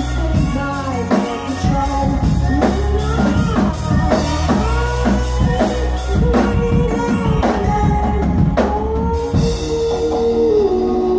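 Live band playing a rock song: sung lead vocal over acoustic guitar, bass, keyboard and drum kit. About nine seconds in the drums stop and a single note is held.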